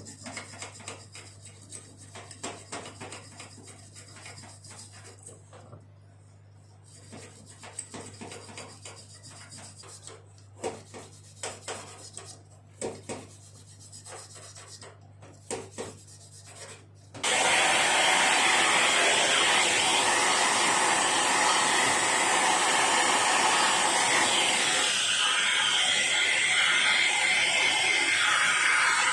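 Small clicks and rubbing from parts being handled over a low steady hum. About seventeen seconds in, a motorised air blower switches on and blows a loud, steady rush of air to clean dust out of the PC.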